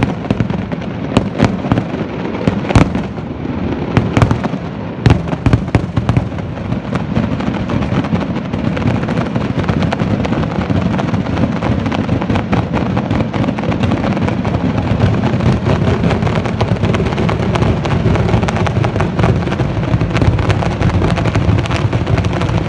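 Fireworks display: loud, separate bangs of aerial shells for the first several seconds, then a dense, continuous rumble and crackle of many rapid bursts.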